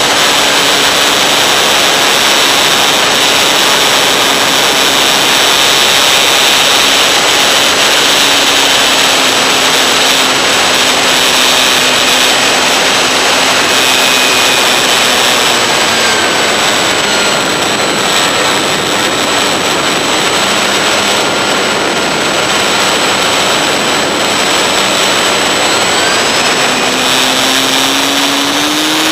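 Onboard sound of an RC model plane in flight: a steady rush of airflow over the camera, with the motor and propeller running underneath. The motor's pitch drops about halfway through and climbs again near the end as the throttle comes back up.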